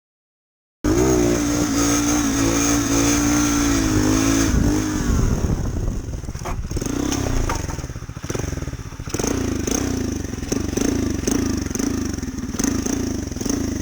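Small motorcycle engine, likely the Honda Monkey's 125cc single, starting abruptly about a second in and held at high revs for a few seconds. It then drops away and revs up and down in quick repeated rises, with a few sharp knocks in between.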